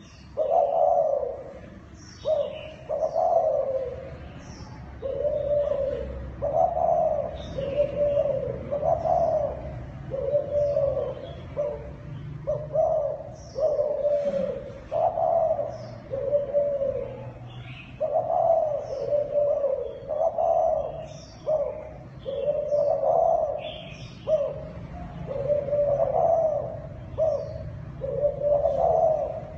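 Zebra dove (Thai dove) cooing in a long unbroken run of short, arched coo notes, roughly one to two a second, with scattered high chirps of small birds over it.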